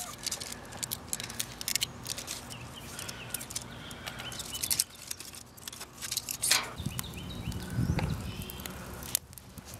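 Sticks and kindling being handled and laid in a metal fire pit: scattered light clicks and knocks, with one sharper crack about two-thirds of the way through. Birds chirp faintly in the background, and a low rumble comes in near the end.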